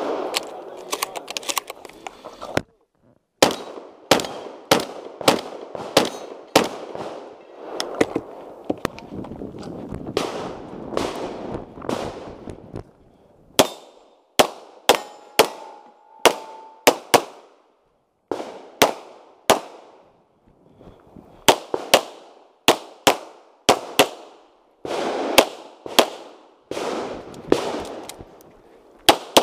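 Competition gunfire from a 3-gun stage, shotgun and pistol shots fired in quick strings, often about half a second to a second apart. Each sharp crack is followed by a short echo.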